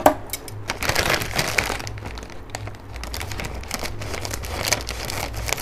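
Foil snack packet of banana chips crinkling and rustling in the hands as it is worked open, in irregular crackles.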